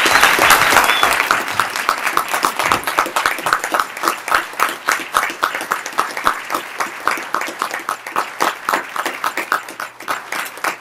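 Audience applauding, densest at first and thinning into more separate claps toward the end.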